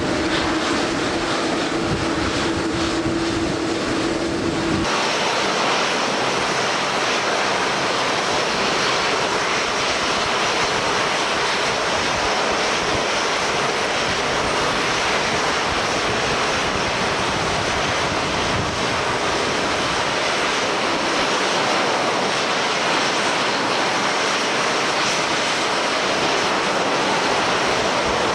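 Airliner jet engines running in heavy rain and strong wind. A steady engine hum cuts off abruptly about five seconds in, leaving an even, steady rushing noise of engines, wind and rain.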